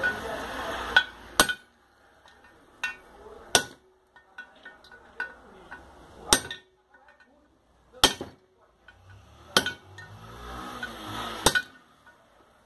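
Hammer blows driving a ball bearing into an aluminium motorcycle engine case half: about eight sharp metallic knocks, a second or two apart and unevenly spaced, with rustling handling noise between. The case rests on a wooden bench that soaks up part of each blow.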